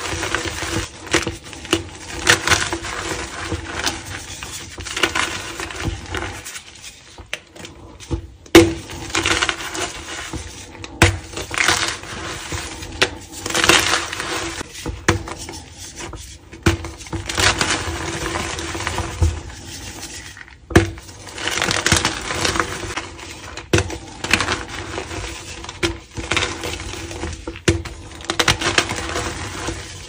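Hands squeezing and crushing homemade plain gym chalk blocks into powder: an irregular run of crisp snaps and crunches with soft powdery crumbling in between.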